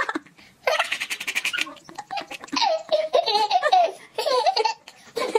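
A baby laughing in several bouts, with a quick run of breathy laughs about a second in and more laughing in the second half.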